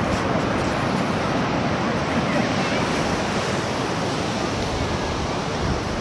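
Steady rushing wash of ocean surf breaking on a sandy beach, with some wind on the microphone.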